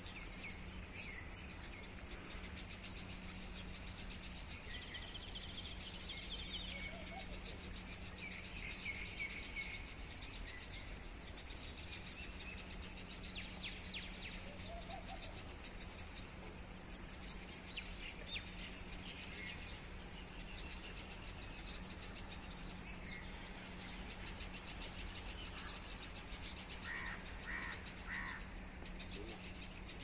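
Small birds chirping on and off over a steady low hum and background noise.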